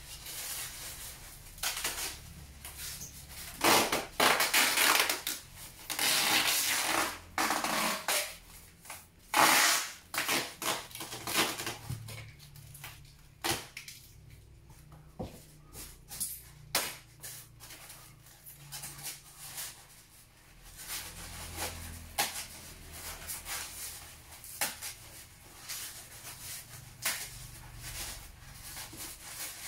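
Irregular rustling, crinkling and scraping handling noise, with scattered clicks and knocks. It is loudest in a few swells in the first ten seconds, then quieter.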